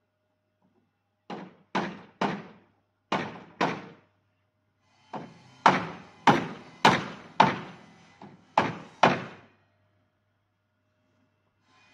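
Hammer striking wood: about a dozen sharp blows in uneven groups of two or three, each with a brief ringing decay.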